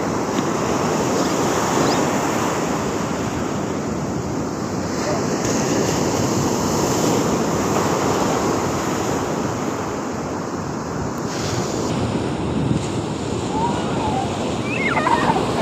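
Sea waves washing onto the shore: a continuous, steady rush of surf.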